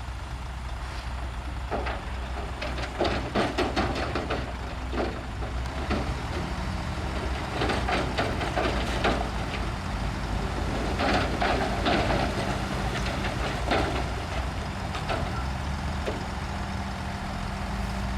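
Komatsu D61EX bulldozer's diesel engine running steadily, its note stepping up about six seconds in, with several bursts of metallic clatter and rattling.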